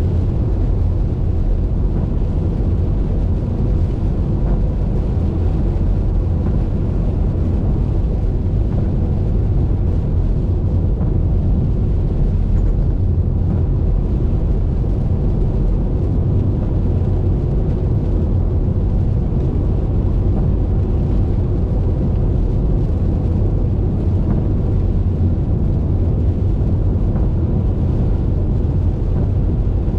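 Car driving at highway speed: a steady low rumble of road and engine noise.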